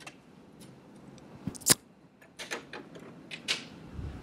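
A few scattered light clicks and taps of small objects being handled, the sharpest about one and a half seconds in.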